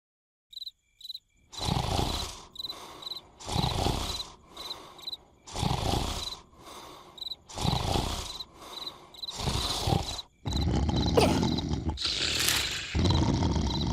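Cartoon snoring: loud snores about every two seconds with quieter breaths between, over crickets chirping about twice a second. After about ten seconds the snoring turns louder and almost continuous.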